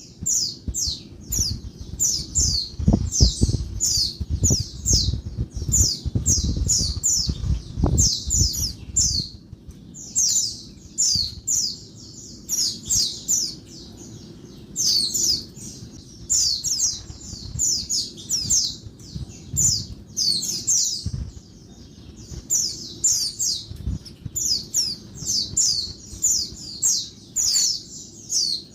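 Female white-eye (pleci) calling noisily: quick runs of short, high-pitched falling notes in bursts, over and over.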